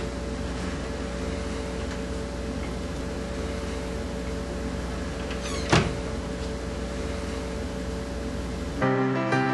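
A steady mechanical hum, with one brief sweeping sound about six seconds in. Acoustic guitar music begins near the end.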